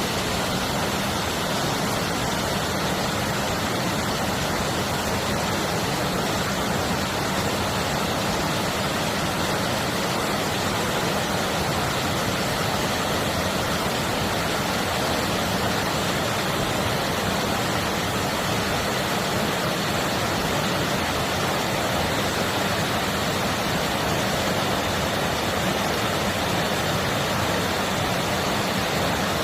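Clear mountain valley stream flowing, a steady, unbroken rush of water.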